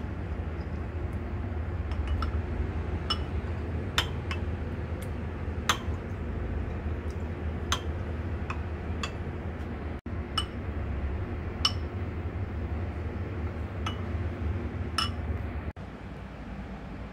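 Porcelain soup spoons clinking against ceramic bowls of rice congee as it is stirred and scooped: a dozen or so short ringing clinks at irregular intervals, over a steady low hum.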